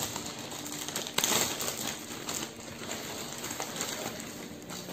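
Plastic courier mailer bag being torn open and a bubble-wrapped package pulled out: crinkling, rustling plastic with many small clicks and a louder crackle about a second in.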